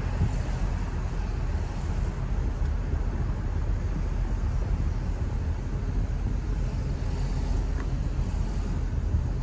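A car driving, heard as a steady low rumble of road and tyre noise with the engine underneath.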